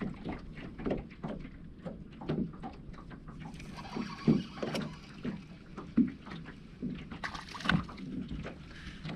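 Small lake waves lapping against the boat's hull in short, irregular slaps and knocks, with a brief louder rush near the end.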